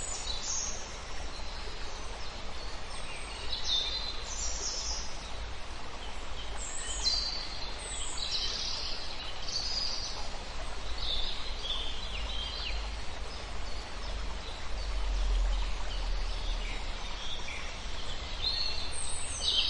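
Forest ambience: several small birds singing, with repeated short chirps and falling trills, over the steady rush of a small river. A low rumble swells for a couple of seconds about three-quarters of the way through.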